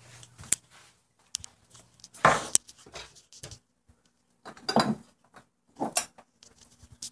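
Small dishes and utensils handled: short clinks and clatters in several separate bursts, with quiet gaps between.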